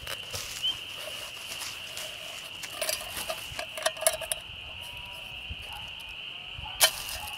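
Steel canteen cup being handled: pulled from its canvas cover, with its wire handle unfolded. This makes a run of small metallic clinks and rattles, then a single sharp clink near the end as the cup is set down. A steady high-pitched tone sounds underneath.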